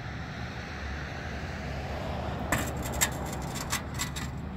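Powered fold-out wheelchair ramp of a minivan conversion unfolding out of the sliding door under its motor: a steady low hum, then from about halfway through a run of sharp metallic clicks and knocks as the ramp lowers.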